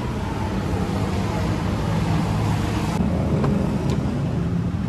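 A car engine running steadily with a low hum, over general workshop noise.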